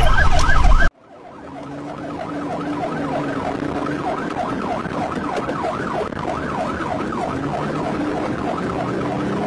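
Police car siren yelping in fast, repeating rising-and-falling sweeps, heard from inside the pursuing patrol car over its engine. About a second in the sound cuts off abruptly, then fades back in with the siren a little quieter.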